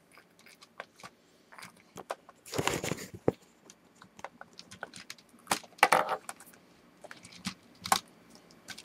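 Hard plastic toy parts clicking and knocking as they are handled and fitted together, with two brief rustling sounds, about two and a half and six seconds in.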